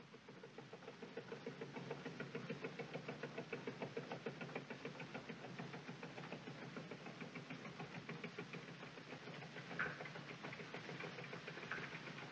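Small motorboat engine chugging steadily in an even beat of about five strokes a second, with one sharper knock about ten seconds in.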